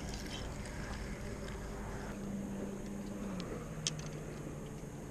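Motorboat engine running steadily across the lake, its pitch dropping a step about three and a half seconds in as the boat slows. There is a faint click from the fishing tackle shortly after.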